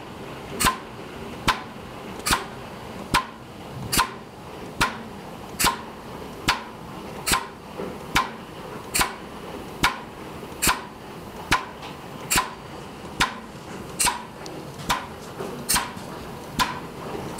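Diaphragm pump pumping maple syrup through a filter press, a sharp clack at each stroke about once every second, in an even rhythm.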